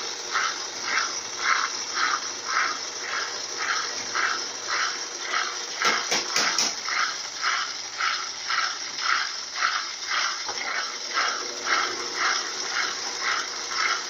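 Consul Maré 7.5 kg top-loading washing machine spinning its basket in the spin cycle, a steady whirring wash of noise with a regular swishing pulse a little over twice a second. A few brief clicks sound about six seconds in.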